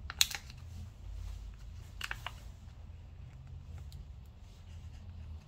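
Short, sharp clicks and taps of a small tool working at an iPad Pro 11's battery connector to disconnect it: one loud click just after the start, a short cluster of clicks about two seconds in, then a few faint ticks, over a steady low hum.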